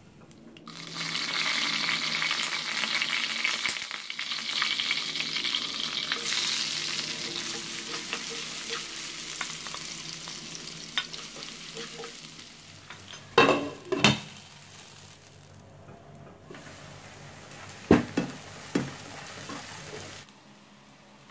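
Sliced onions dropped into hot oil in a nonstick wok, sizzling loudly from about a second in and slowly dying down as they cook. Later a plastic spatula stirs them, with a few sharp knocks against the pan.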